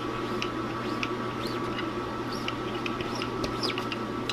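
Thick screen-printing ink squelching and squeaking under a small hand squeegee dragged across the screen mesh, a scatter of short, sticky chirps and ticks over a steady shop hum.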